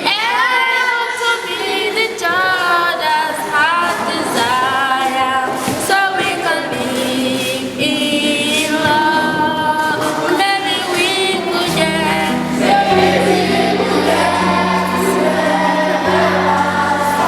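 A choir singing a melody with sustained, wavering notes. A low held accompaniment note joins about twelve seconds in.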